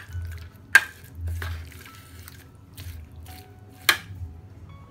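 A metal spoon knocking sharply against the bowl twice, under a second in and again near four seconds, with a wet squishing between the strokes as it works a thick spice paste into raw chicken.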